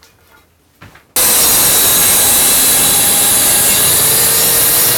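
Bosch plunge track saw running loud and steady as it rips a tapered jamb extension leg along its guide rail. It comes in suddenly about a second in.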